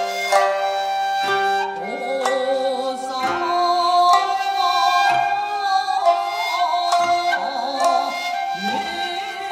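Traditional Japanese jiuta ensemble playing live: sangen (shamisen) and koto plucking notes about once a second under held shakuhachi tones that bend and waver in pitch.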